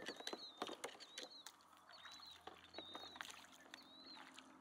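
Faint splashing and light knocks from a decoy spreader and its decoys being handled in shallow water. A bird repeats one short high chirp about twice a second.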